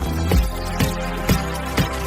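Dance-pop track in an instrumental passage without vocals: a steady beat with a low kick drum about twice a second under held synth notes.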